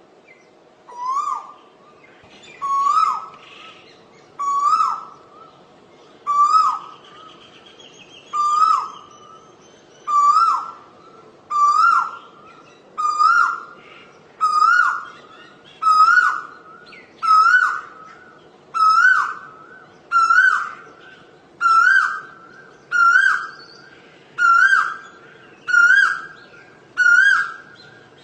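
Asian koel calling: a short two-part 'ko-el' note repeated about every one and a half seconds, the series creeping higher in pitch and coming a little faster as it goes on.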